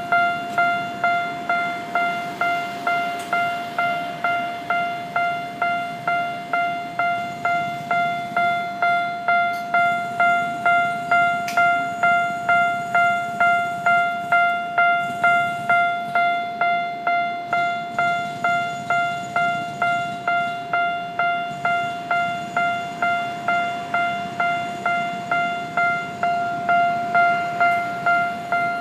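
Japanese level-crossing warning bell ringing steadily, an electronic clang struck about twice a second, signalling that the crossing is closed for an approaching train.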